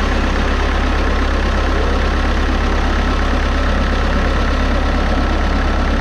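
Bobcat skid steer's Kubota diesel engine idling steadily and loudly.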